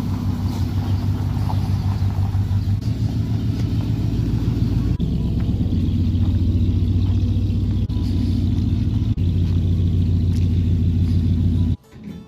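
A motor vehicle's engine running steadily at an even, low pitch, cutting off abruptly near the end.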